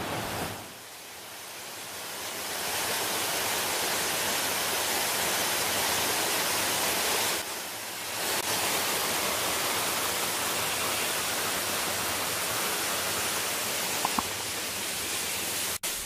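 Waterfall rushing: steady noise of falling water, dipping in level about a second in and again briefly around the middle before coming back.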